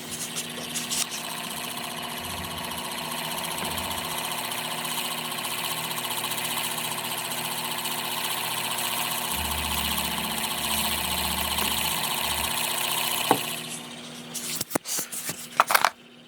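Small electric gear motor in a fake aquarium lamp's drive, running on about 20 volts with a steady whirring gear noise. It stops about thirteen seconds in, followed by a few clicks and knocks of handling.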